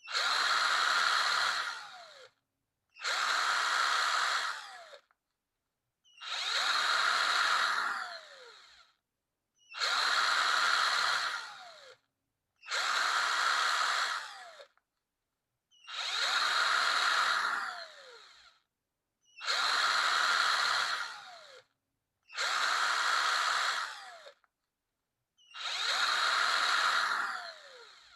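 Electric power drill run in short bursts of about two seconds, nine times, one every three seconds or so, the motor whining up and then falling in pitch as it spins down after each release of the trigger.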